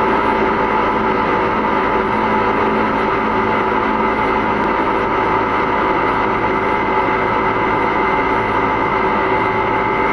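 Steady flight-deck noise of an Airbus A300-600 freighter in the climb after takeoff: a constant rush of airflow and engine drone with several steady humming tones running through it.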